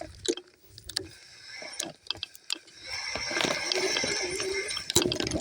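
Scooter rattling and knocking as it rides over bumpy ground, with scattered sharp clicks and knocks and a steadier running noise building after about three seconds.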